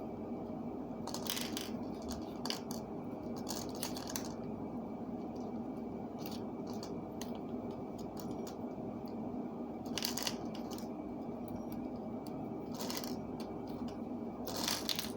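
Wire and pliers being handled while wrapping wire: scattered small, sharp clicks and light scrapes at irregular intervals, over a steady low hum.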